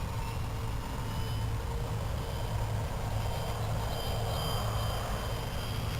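Faint high whine of a radio-controlled foam plane's electric motor in flight, rising slightly in pitch in the first second or so, over a steady low rumble.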